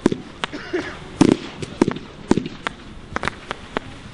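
Two Perkunas Thor 24-shot firework cakes firing together: an irregular run of sharp bangs and pops from shells launching and bursting, about a dozen in four seconds, the loudest about a second in.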